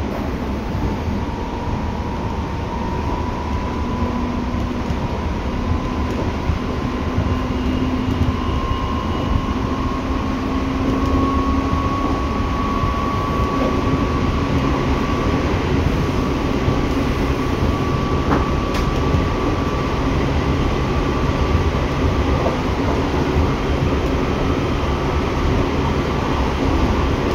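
Seibu 6000 series electric train running, heard from inside the car near its line breaker: the whine of its Hitachi GTO inverter and traction motors rises slowly in pitch over the first dozen seconds, then holds steady, over the rumble of wheels on the track.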